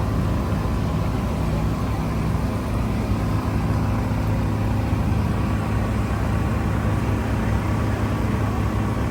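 Car driving at a steady speed: a constant low engine drone mixed with road noise, without change in pitch or level.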